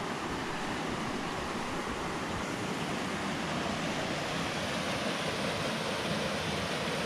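The Little Carp River rushing over rock ledges and small cascades: a steady, even sound of running water.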